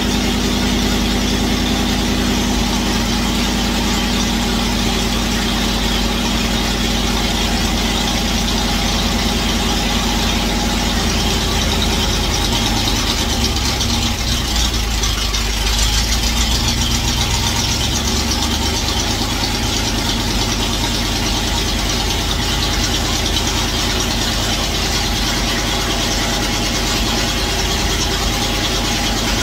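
Car engine on a freshly installed 600 cfm carburetor, idling steadily through open headers, a little louder for a moment about sixteen seconds in.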